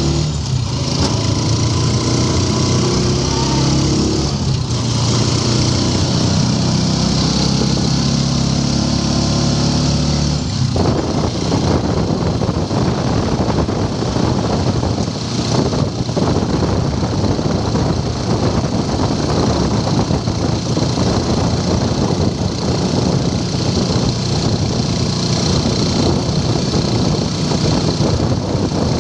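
Motorcycle engine of a tricycle running steadily while under way, heard from the sidecar. About ten seconds in, its even engine note gives way abruptly to a rougher, noisier sound that carries on to the end.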